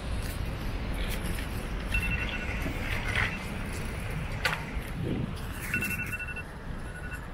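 Street traffic rumble with short runs of rapid electronic beeping, two high tones pulsing quickly, about two seconds in and again near six seconds. There are a couple of sharp clicks in between.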